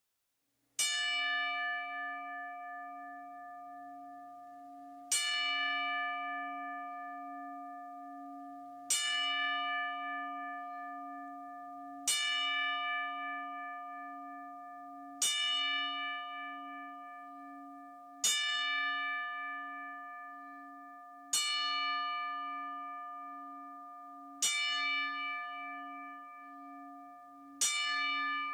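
A single bell tolled slowly, struck nine times about every three to four seconds. Each strike rings on and fades under the next, as a memorial toll.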